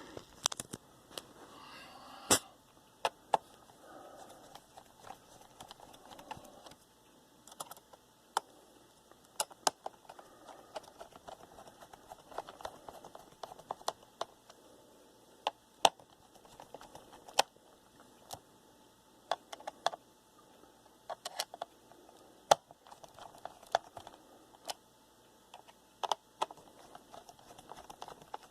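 Small screwdriver tightening a laptop's CPU heatsink screws a little at a time: scattered sharp clicks at irregular intervals over faint rubbing and handling noise.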